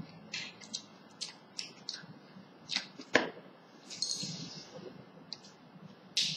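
Scattered light clicks and taps from small plastic electrical switches and extension-board fittings being handled, with a short rustle about four seconds in.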